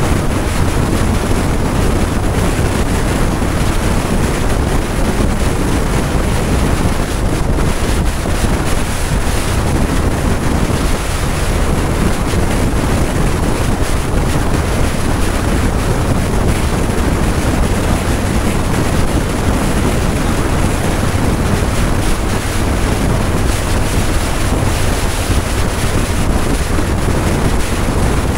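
Steady wind rush buffeting the microphone of a camera riding on a motorcycle at road speed, with a low rumble underneath.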